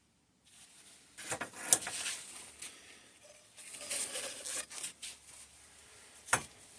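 Small metal suspension-fork damper parts being handled: scattered light clicks and rustling, with sharper clicks about two seconds in and near the end.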